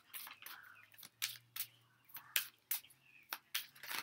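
A deck of tarot cards being shuffled by hand: a quick, uneven run of crisp card snaps, about three a second.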